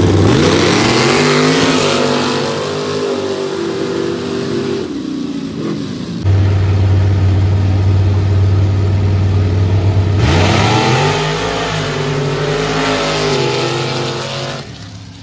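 Two square-body pickup trucks launch side by side at a dirt drag race, their engines revving hard at full throttle with the pitch climbing, then easing off after about five seconds. After a cut, a second pair sits staged with engines running loudly, then launches about ten seconds in for another full-throttle run of about four seconds.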